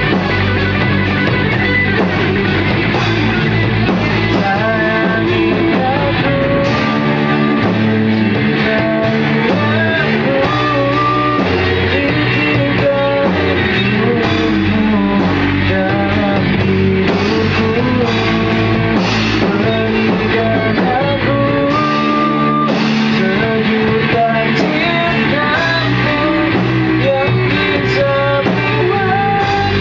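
A small rock band playing a song in rehearsal: guitars and drums with a singer's voice carrying the melody.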